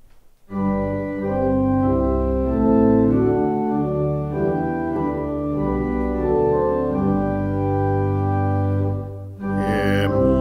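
Organ playing the hymn tune in slow, sustained full chords that change about once a second, starting about half a second in. Near the end, after a short break, a bass voice begins singing over the accompaniment.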